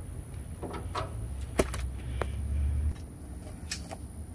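Scattered sharp metallic clicks and light knocks as a hose's metal fitting is handled and threaded onto a brass tank valve, over a low rumble.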